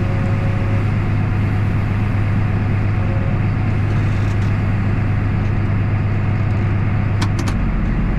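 Tractor engine running steadily under load, a loud, even drone. Near the end the drone drops lower in pitch, just after a few sharp clicks.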